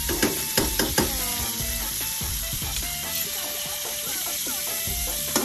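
Butter melting and sizzling in a wok, with a spatula stirring and scraping in the pan and knocking against it a few times in the first second.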